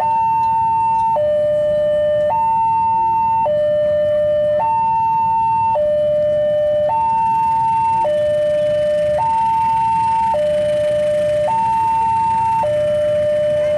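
A two-tone electronic warning alarm, alternating steadily between a high and a low tone, each held a little over a second. Beneath it is the low rumble of a diesel locomotive moving slowly with its passenger train.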